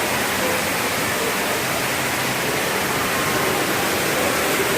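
Steady rush of falling water, even and unbroken, with faint voices under it.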